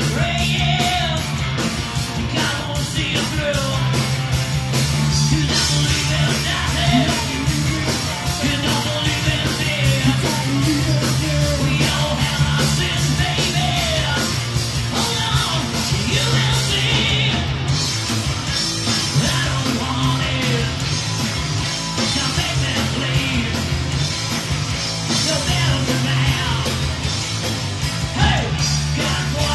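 Live rock band playing a song: a male lead vocal sung into a microphone over electric guitars and a steady drum beat, amplified through a PA.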